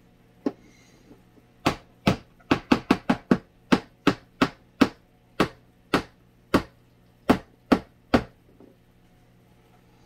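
A series of about eighteen sharp knocks as a mini box fan's small metal sleeve-bearing bracket is tapped against the workbench to work the oil in. The knocks come fastest a couple of seconds in and then space out.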